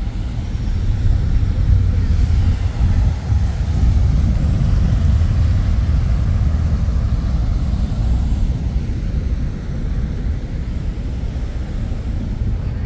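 Loud, steady low rumble of a vehicle in motion, swelling over the first second or so and then holding.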